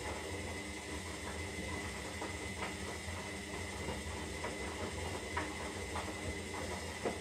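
Zanussi Lindo 300 washing machine running partway through a 60-degree synthetics wash cycle. It gives a steady low hum and a thin high whine, with a few soft knocks scattered through.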